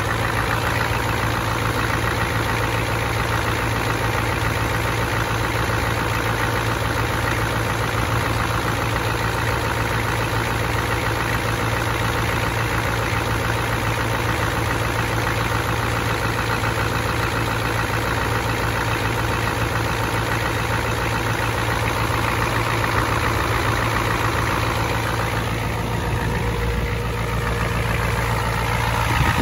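1993 Ford F250's 7.3-litre IDI V8 diesel idling steadily, warming up after a cold start.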